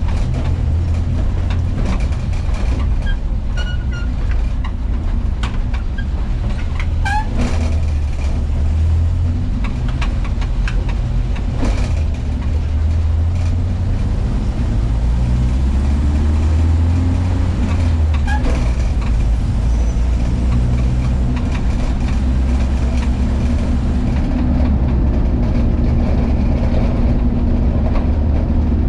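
VW Kombi van engine running under way with a strong low drone. About halfway through it rises in pitch as the van accelerates, then drops back sharply as if on a gear change. Occasional clicks and rattles can be heard.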